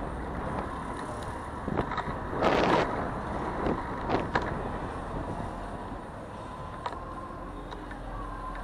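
City street traffic heard from a bicycle riding in the road: steady vehicle noise, with a short loud rush of noise about two and a half seconds in and a few sharp clicks.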